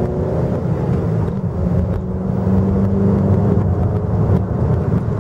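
Steady hum of a JAC T5 compact SUV's 1.5-litre flex-fuel engine, with road noise, heard from inside the cabin while driving.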